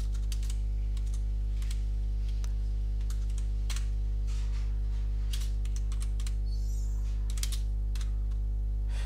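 Computer keyboard typing: irregular keystrokes, scattered clicks with pauses between them, over a steady low hum.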